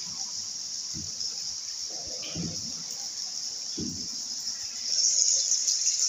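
A steady high-pitched insect-like trill, like a cricket chorus. It dips low at first and swells back about five seconds in, with a few soft low thuds.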